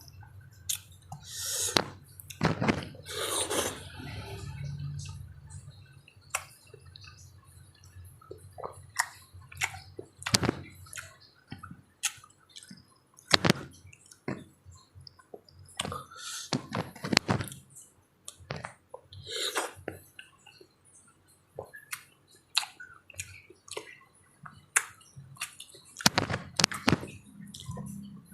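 Close-up wet eating sounds: papaya with a little syrup being chewed, with many irregular lip smacks, sucking and sharp clicks.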